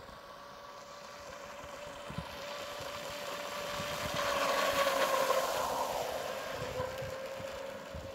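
Pro Boat Blackjack 24 electric RC catamaran's brushless motor whining at speed, with the hiss of its spray. It grows louder to a peak about five seconds in, dips slightly in pitch as the boat passes, then fades as it runs away.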